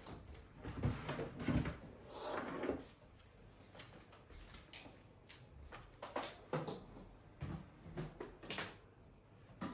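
Knocks, thumps and clatter of a plastic air fryer being handled, carried and set down on a kitchen counter. The heaviest thumps come in the first two seconds, followed by scattered lighter knocks and clicks.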